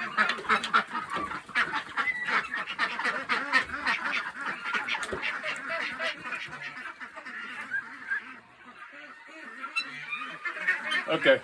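A mixed flock of domestic ducks and geese calling in a dense, overlapping din of quacking and honking. The calls thin out for a couple of seconds about two-thirds of the way through, then pick up again.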